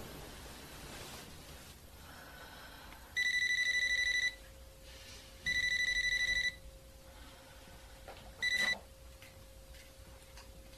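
Cordless landline telephone ringing with an electronic ring: two rings about a second long, then a third cut short near the end as the call is answered.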